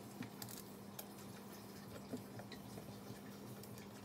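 Faint, scattered small clicks and taps of parts being handled and fitted on a blender motor, over a steady low hum.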